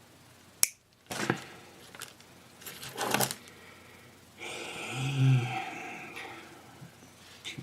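Sharp snips and clicks of small hand tools cutting and stripping a piece of hookup wire for a jumper, with scraping as the wire is handled. A longer rustling noise with a brief low hum follows near the middle.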